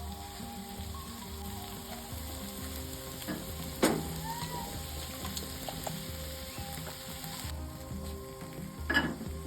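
Food sizzling as it fries in a pan and is stirred, with two sharp knocks of a utensil against the pan, about four seconds in and near the end.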